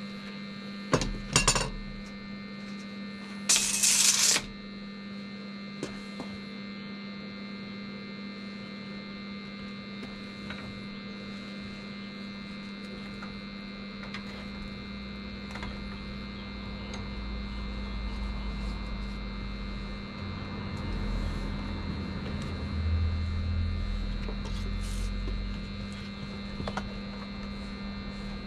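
Steady electrical hum, with a few sharp clicks about a second in and a short loud hiss around four seconds in. A low rumble swells up over the second half.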